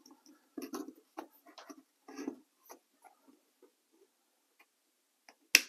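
A plug being handled and pushed into a small control panel, with scattered light clicks and rustles. Near the end comes a single sharp click as a toggle switch is flipped on.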